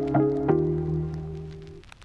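Background music: a few notes that start sharply and ring out, fading away toward the end.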